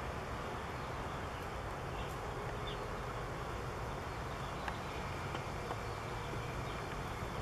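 Steady outdoor ambience: an even low rumble with a few faint, soft ticks.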